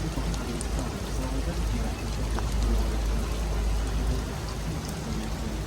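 Heavy rain falling steadily: a constant wash of noise with scattered drop ticks and a low rumble, with faint voices in the background.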